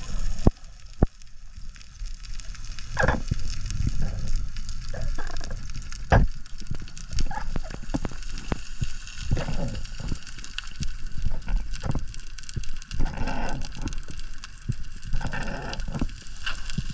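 Underwater sound on a breath-hold dive: irregular crackling and sharp clicks over a low rumble of moving water, heard from inside the camera's housing.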